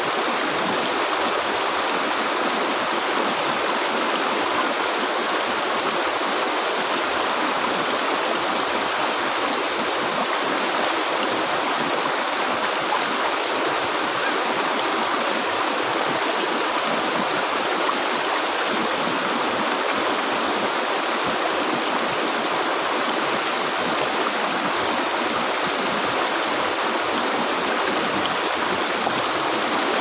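Clear, shallow river babbling over and around boulders in small rapids: a steady, unbroken rush of water.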